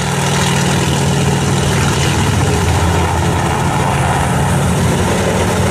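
Sikorsky S-58 piston helicopter in low flight, its engine and main rotor giving a loud, steady drone.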